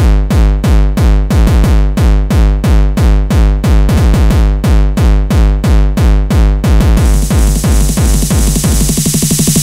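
Hard electronic dance music: a heavy kick drum pounds about three times a second, a hissing high layer comes in about seven seconds in, and the kicks break into a rapid roll near the end.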